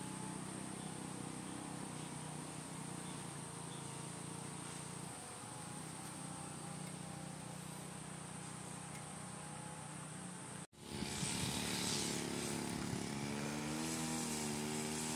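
An engine running steadily, with a constant high-pitched hiss over it. After a brief dropout it gives way to a louder engine sound whose pitch rises and falls.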